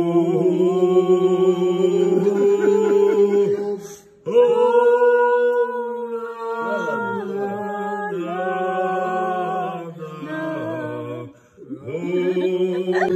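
Two men singing a slow song together, unaccompanied, in two-part harmony with long held notes. The singing breaks off briefly twice, about four seconds in and near the end.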